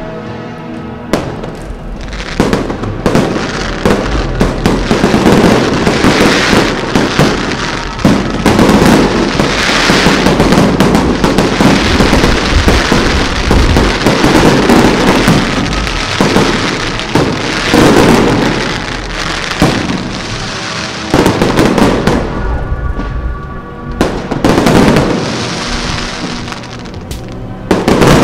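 A fireworks salute: a dense run of bangs and crackling from shells bursting, with short lulls about two-thirds of the way through and again near the end.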